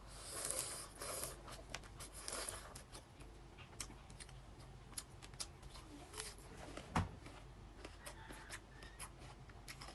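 Close-miked crab eating: rustling bursts in the first few seconds, then scattered sharp clicks and cracks of shell, the loudest crack about seven seconds in.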